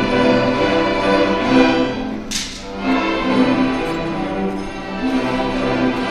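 A fifth-grade school orchestra playing, with bowed strings holding sustained notes. About two seconds in, the playing briefly dips and a short bright swish cuts through.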